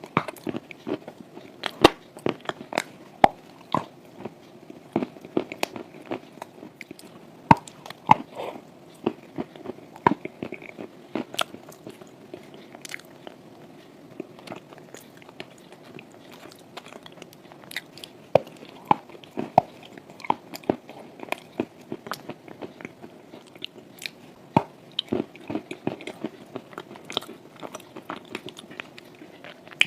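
Close-up crunching and chewing of dry chalk eaten with clay paste: a continuous run of sharp, irregular crunches with softer chewing between them.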